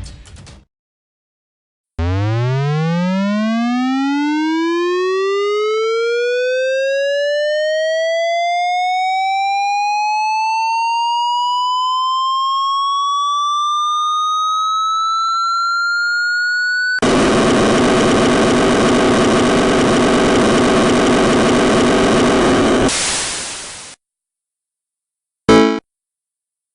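Cartoon laser sound effect: a synthesized tone rising steadily in pitch for about fifteen seconds as it charges up, then cutting straight into a harsh noisy blast that lasts about six seconds and fades out. A short burst follows near the end.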